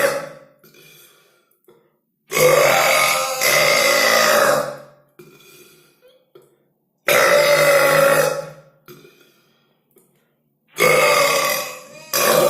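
Loud, drawn-out human belches, one after another: one tailing off at the start, then four more with short quiet gaps between, the longest lasting nearly three seconds.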